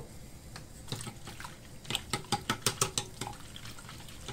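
Whisk beating milk into a yeast starter in a glass bowl: the liquid sloshes, and about halfway through comes a quick run of clicks as the whisk strikes the bowl, about seven a second.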